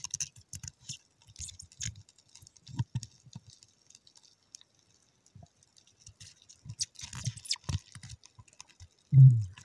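Underwater sound picked up by a submerged camera: scattered faint clicks and crackles with a few soft low thuds, and a louder thud near the end.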